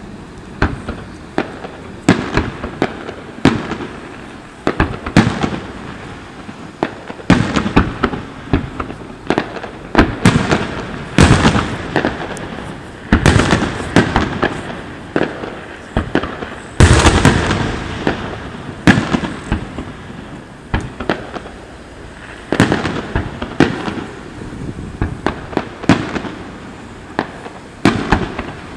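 Aerial fireworks display: shells bursting in a steady stream of sharp bangs, often in quick clusters with a rumbling echo after them. The heaviest burst comes about 17 seconds in.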